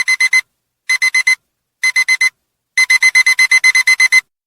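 Digital alarm-clock beeping as the countdown timer runs out: a high electronic beep in three quick groups of four, then a fast run of about a dozen beeps.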